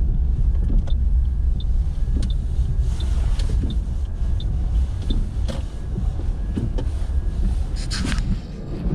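A car's steady low road-and-engine rumble heard from inside the cabin while driving on a snowy road. Faint regular ticks come about every 0.7 seconds through the middle, and a short sharper rustle comes near the end.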